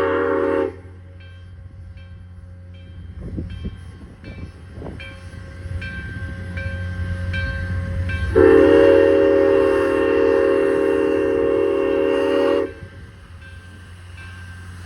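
A locomotive whistle sounding a steady multi-note chord: a blast that cuts off within the first second, then a second blast of about four seconds past the middle. A steady low rumble runs underneath.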